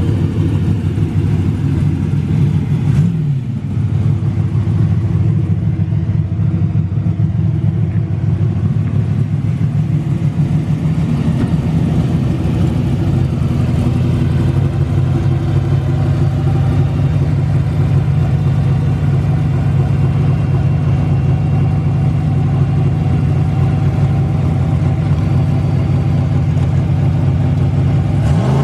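Turbocharged drag car's engine idling steadily, with a short blip of revs about three seconds in; right at the end the revs start climbing sharply.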